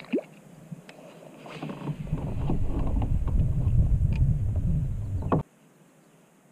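Wind buffeting the camera microphone: a low rumbling gust that builds about a second and a half in and cuts off suddenly a little after five seconds, with a few light clicks.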